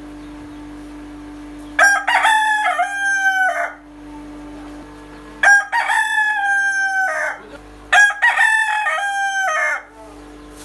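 A rooster crowing three times, each crow just under two seconds long, over a steady background hum.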